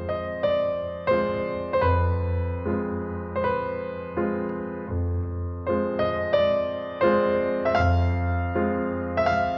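Calm, slow keyboard music: a melody of single struck notes, roughly one every half second to a second, each fading away, over long held low bass notes.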